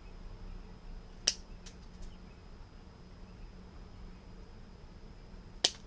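Wire cutters snipping through the drone's main power leads: two sharp snips, about a second in and near the end, with a couple of fainter clicks after the first.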